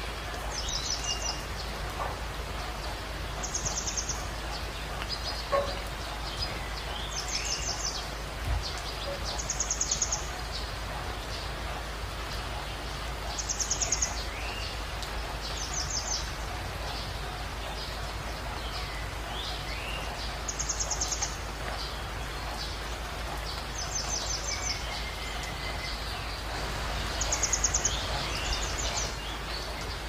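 Steady hiss of rain and a running stream, with small songbirds singing over it: about ten short, high, fast trills every few seconds and scattered chirps between them.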